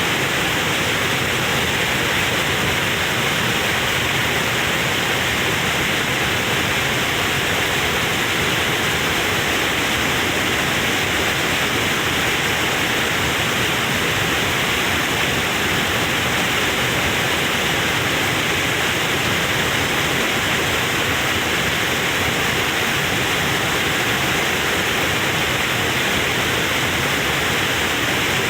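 Waterfall crashing steadily into its pool, a loud, even rush of falling water.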